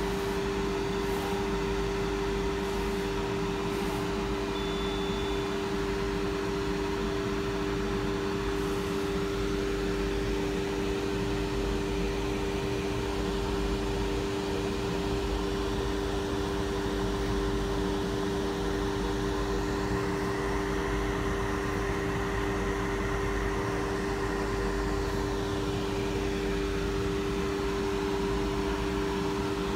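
Laser cutter running as it cuts a sheet of small stickers: a steady mechanical hum with a low, even drone.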